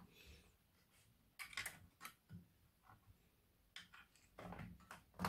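Faint scattered clicks and scrapes of a laptop's 2.5-inch hard drive in its metal caddy being worked out of its bay with a screwdriver, with a longer scrape near the end.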